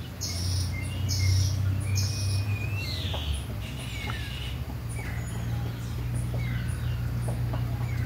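Farmyard chickens clucking, with short bird chirps scattered through, over a low steady hum.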